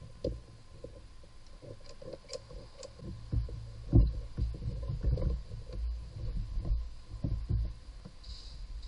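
Irregular low thumps and knocks from hands handling parts and a cable among the engine bay's plastic components, loudest about four seconds in.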